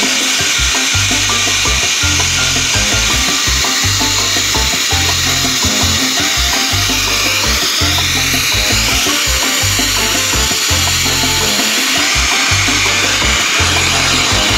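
Background music with a steady, repeating bass line over the continuous hiss of a pet grooming dryer blowing on a dog's coat.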